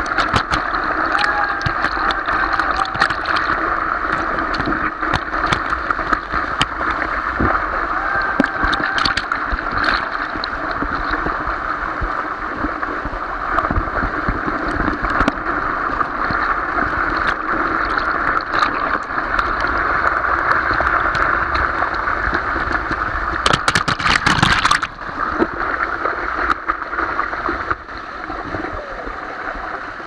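Small waterfall pouring directly over the microphone: a loud, steady rush of water with constant splashing and spatter against the camera. A brief, louder crash of water comes a little after two-thirds through.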